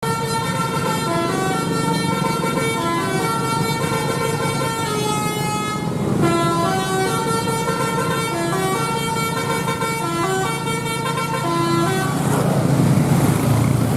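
Bus 'telolet basuri' multi-tone electric horn playing a tune of short stepped notes over a running engine. The tune stops about twelve seconds in, leaving engine and road noise.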